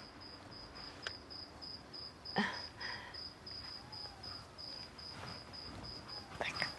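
Crickets chirping steadily at night in a regular high pulse, a few chirps a second. About a third of the way in there is a single soft knock.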